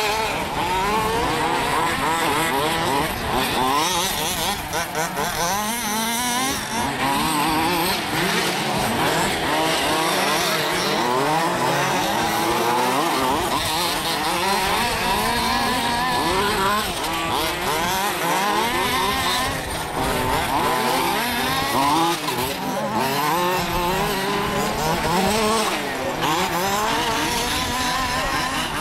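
A pack of large-scale (1:5) off-road RC buggies racing, their small two-stroke petrol engines whining together. Many engine notes overlap and keep rising and falling as the cars accelerate and back off around the dirt track.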